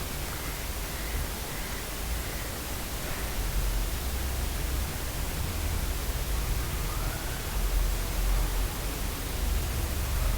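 Steady hiss of background noise, like static, with a low rumble underneath that grows louder partway through.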